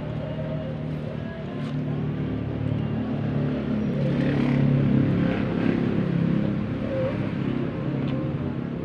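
A motor vehicle's engine running with a steady low hum, growing louder in the middle and easing off again.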